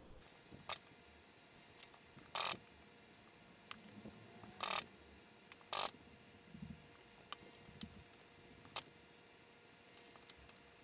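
A metal fork clinking and scraping against a glass mixing bowl and a metal sheet pan while chocolate-coated balls are lifted out and set down: irregular sharp clinks, three of them louder and a little longer.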